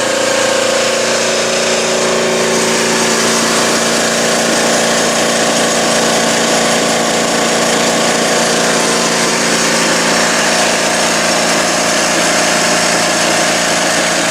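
RAD pneumatic torque wrench running steadily on compressed air at its lowered torque set point: a loud, even air-motor drone with steady tones and a strong hiss of exhaust air.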